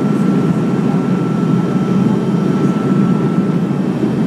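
Cabin noise of a Dornier 328 turboprop on landing approach: its Pratt & Whitney Canada PW119 engine and propeller give a steady low drone, with a thin high whine held steady above it.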